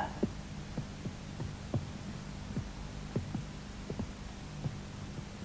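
Soft, irregular footsteps thudding on a wooden stage floor, about one or two a second, over a steady low hum.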